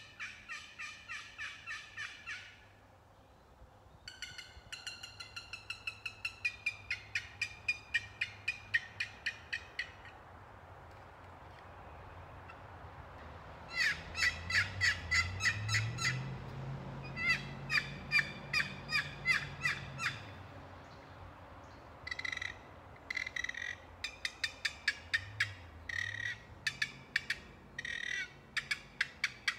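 4-Play turkey box call played in runs of rapid hen-turkey yelps, about five notes a second, in several series with short pauses between them. This is the call's "walk away" sequence, imitating a hen turkey moving off.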